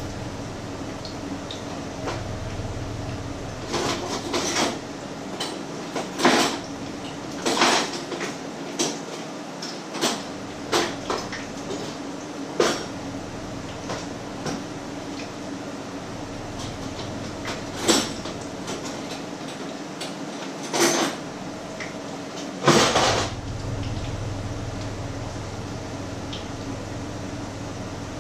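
Kitchen clatter: irregular knocks and clinks of pots, lids and utensils being handled, over a steady low hum.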